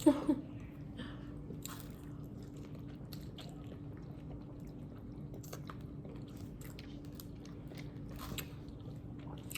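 Close-miked chewing and biting of food, with small wet clicks and crunches scattered irregularly, over a steady low hum.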